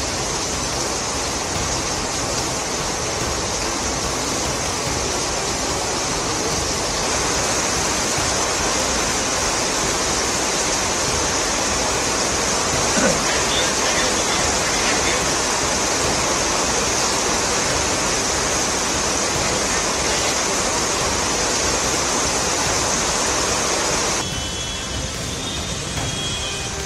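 Heavy rain: a steady, loud hiss of a downpour, with water streaming and splashing off roof edges. About three seconds before the end it gets quieter and wet street traffic comes in.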